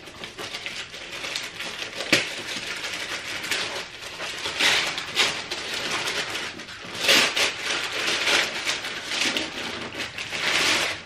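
Brown kraft wrapping paper being torn open and crumpled by hand as a present is unwrapped, with several loud bursts of crinkling and a sharp snap about two seconds in.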